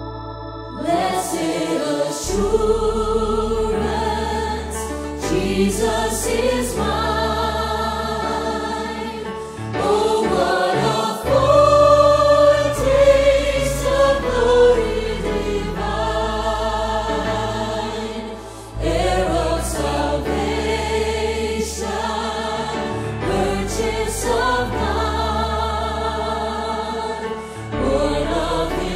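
Church choir singing, accompanied by a keyboard with sustained bass notes.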